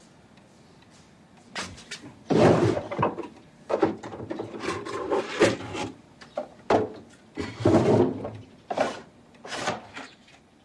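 Rummaging in a wooden drawer: an irregular run of scrapes, rubs and knocks that starts about a second and a half in.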